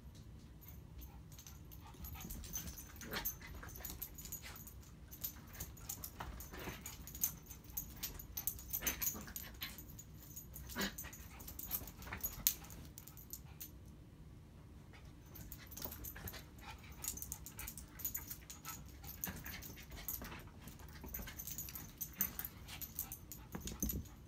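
Small dogs playing, with short faint dog sounds and scuffles coming in two busy spells, and a brief lull about halfway through.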